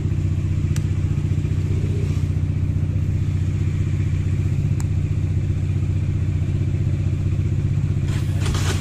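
Motorcycle engine idling steadily while being warmed up. A brief rustle or clatter comes near the end.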